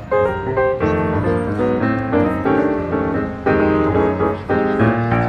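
Background music led by piano, playing chords and a melody in a steady rhythm.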